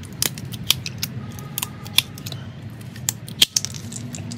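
Wheel-nut cap puller pulling the plastic caps off the wheel nuts of a BYD Atto 3's alloy wheel: a run of irregular sharp plastic clicks and clinks, the loudest about three and a half seconds in.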